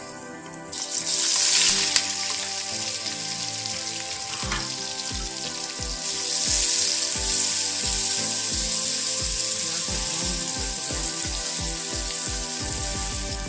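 Sliced onions dropped into hot cooking oil in an aluminium pot, hissing up sharply about a second in and then frying with a steady sizzle. From the middle on, a regular low knocking, getting quicker, as a steel spoon stirs them.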